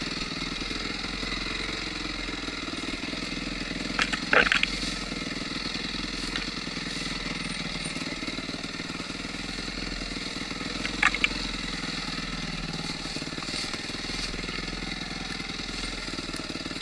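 A Yamaha WR250F four-stroke enduro bike's engine runs at low, steady revs while picking its way along a technical trail. There are a few sharp knocks around four seconds in and once more around eleven seconds in.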